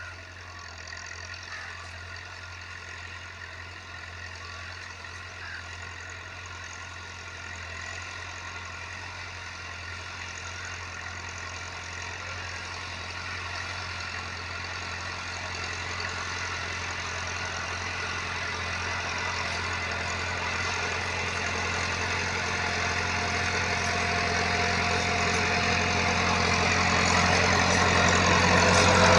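Massey Ferguson 375 tractor's diesel engine running steadily while ploughing. It grows gradually louder throughout as the tractor draws closer.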